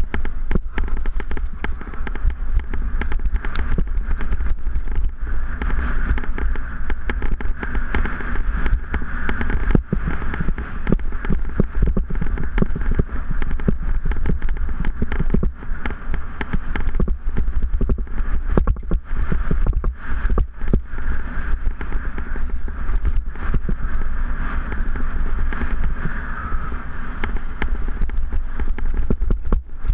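Mountain bike rolling fast over a rough dirt trail, heard through a handlebar-mounted camera: dense rattling and knocking from the bumps over a steady low rumble.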